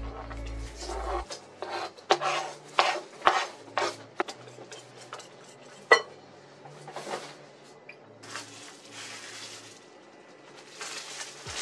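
Wire whisk stirring cheesecake batter in a glass bowl, the metal wires scraping and tapping against the glass in a run of quick strokes, with one sharp clink about six seconds in. Near the end, plastic wrap crinkles as it is peeled off the crust.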